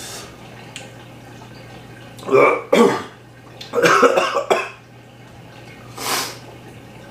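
A man coughing and clearing his throat in two harsh bouts, about two and four seconds in, then a short breathy burst near the end: a reaction to the burn of a Carolina reaper pepper-pickled egg he has just eaten.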